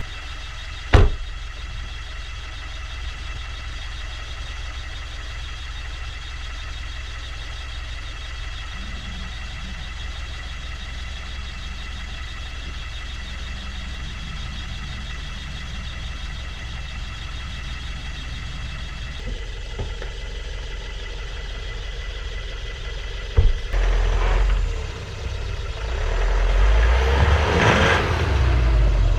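A vehicle engine running steadily, with a sharp knock about a second in and another about 23 seconds in. The running gets louder and rougher over the last few seconds.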